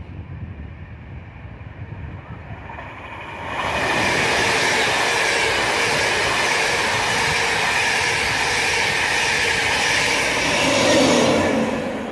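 LNER InterCity 225 train (Mk4 coaches with Class 91 electric locomotive 91119 at the rear) passing close by on the near line: a sudden loud rush of wheel and rail noise about three and a half seconds in, steady, loudest near the end as the locomotive at the rear goes by, then starting to fade.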